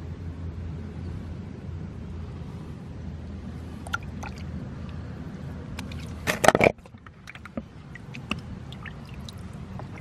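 A caught eel being handled right at the microphone over a steady low rumble of running stream water: scattered small knocks and clicks, and one short, loud burst of handling noise about six and a half seconds in. After the burst it goes quieter.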